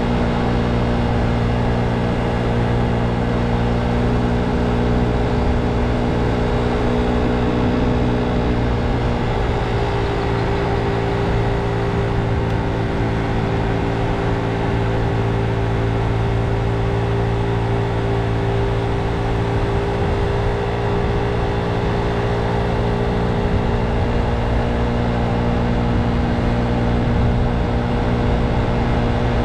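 Motor scooter engine running steadily while riding along at cruising speed; its note dips slightly about nine seconds in and comes back up near the end.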